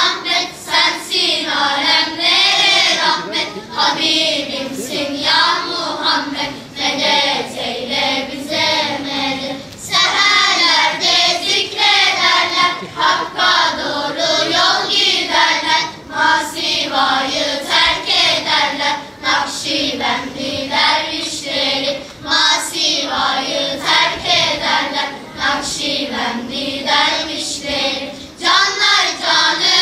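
A children's choir of boys and girls singing a song together, with short breaks between phrases.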